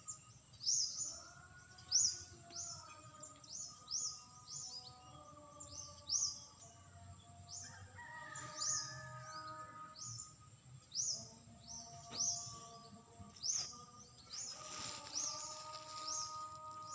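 A bird chirping over and over, short high falling notes about twice a second, over soft background music of long held notes.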